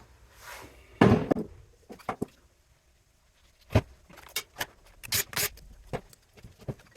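Irregular knocks, clicks and short scrapes of hand tools and metal parts being handled while an electric motor is taken apart for its copper. The sharpest knocks come about a second in and just before the four-second mark, with a cluster of quick scrapes soon after.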